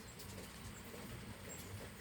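Hummingbirds giving a few faint, short, high squeaky chips in the second half, over a low steady background hiss.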